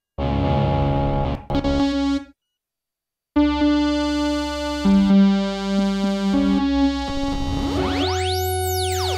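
Barking Wombat software synthesizer playing presets: a short synth sound that stops about two seconds in, then after a brief silence a string of held notes and chords, with a sweeping tone that rises high and falls again near the end.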